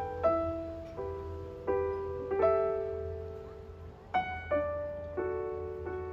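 Background music: slow, gentle solo piano, single notes and chords struck one after another, each ringing out and fading.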